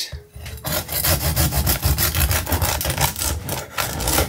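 Serrated bread knife sawing back and forth through the crusty crust of a fresh sourdough loaf on a wooden cutting board, in quick repeated strokes.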